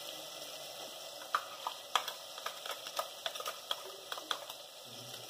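Onion-and-spice masala sizzling in oil in a steel pressure cooker as tomatoes are tipped in from a steel bowl, with a run of sharp clicks and taps from about a second in until near the end.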